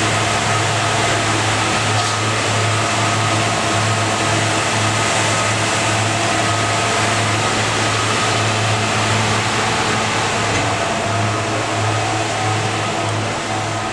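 Steady hum and whir of equipment-room cooling fans and air conditioning, with a low mains-like hum and several steady tones over a broad hiss. The hiss eases a little about ten seconds in.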